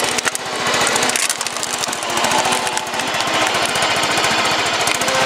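Small gasoline engine of a homemade tracked machine running, a loud, rapid pulsing.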